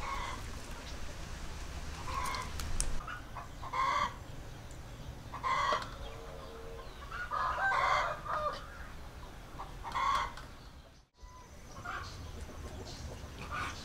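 Chickens clucking: short repeated calls every second or two, with one longer call about eight seconds in. The sound drops out briefly just after eleven seconds.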